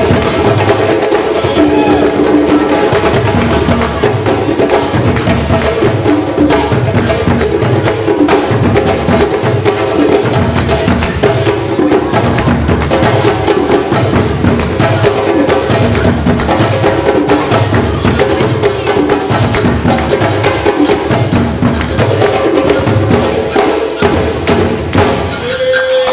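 West African-style drumming: two djembes played by hand and a tall standing drum struck with sticks, in a fast, steady rhythm with deep strokes about once a second. The playing ends just before the close.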